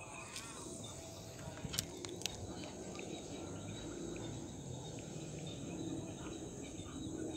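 Crickets chirring steadily in a high, even drone, with two sharp clicks close together about two seconds in.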